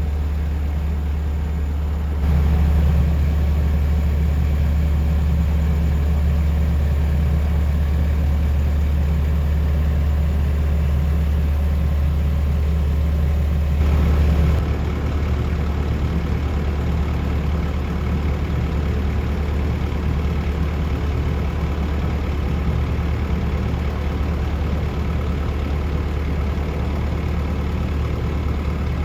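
Diesel engine of a Komatsu PC128US-8 excavator running steadily. It gets louder about two seconds in and drops back to its earlier level about halfway through.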